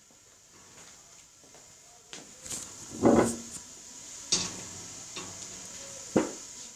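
A few short knocks and clatters over a faint steady hiss, the loudest about three seconds in, with another sharp one near the end.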